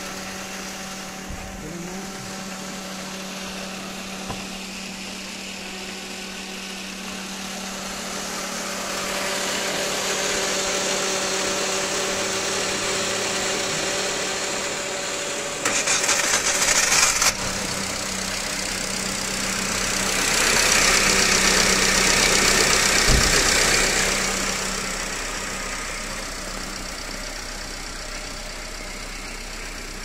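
Electric hair dryer running inside a car's engine bay, blowing hot air to warm a cold engine so it will start. A steady motor hum sits under a rush of air that swells louder twice, with a harsher blast of about a second and a half midway.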